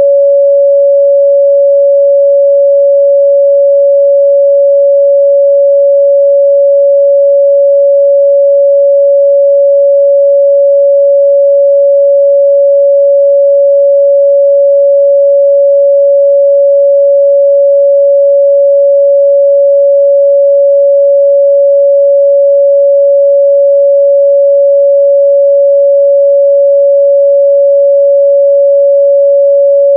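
A pure 562 Hz sine-wave test tone, held steady and loud at one pitch with no other sound.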